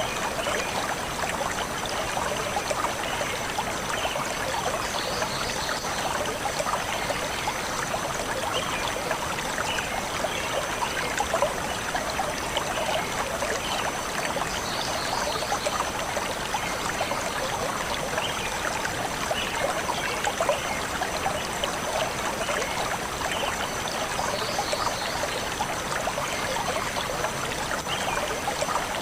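Small forest stream flowing and burbling steadily over stones, with a few faint, brief high bird chirps about every ten seconds.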